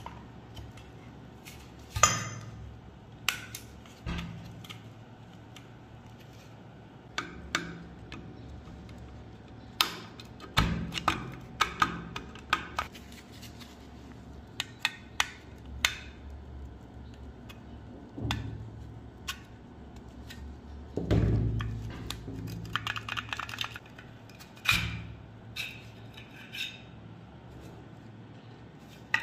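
Scattered clicks, taps and knocks of rusty metal pistol parts being handled and set down on a hard, wet surface, a few of them louder with a short ring, and one heavier thump about two-thirds of the way through.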